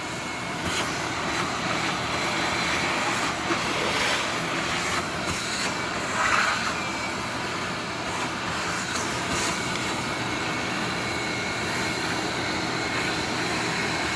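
Steady blower whoosh of a shop vac and a heat gun running, drying out a pool's main drain area, with a few scattered light clicks and knocks.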